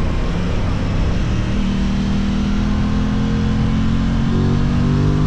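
Aprilia RS660 motorcycle's parallel-twin engine running at a steady speed, heard from on the bike, with a small change in pitch about four seconds in.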